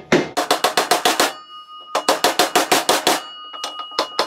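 Hammer tapping quickly and lightly on a 36 mm socket, driving a new converter bushing into a 48RE transmission's front pump, with a metallic ring hanging between the taps. Two runs of about eight taps a second, with a short pause between them, then a few scattered taps near the end.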